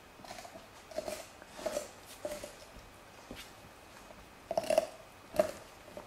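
Dobermann puppy gnawing on a bone: irregular short crunches and scrapes. The loudest come about four and a half seconds in and a second later.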